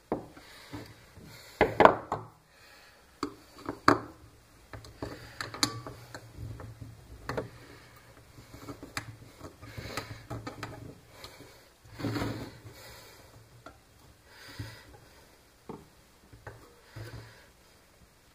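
Handling noises of a hot glue gun on a homemade wooden stand with wire braces: irregular clicks, knocks and rubbing as the gun is pushed into and worked about in the wire holder. The loudest knocks come a little under 2 s in and around 4 s, with a longer scrape about 12 s in.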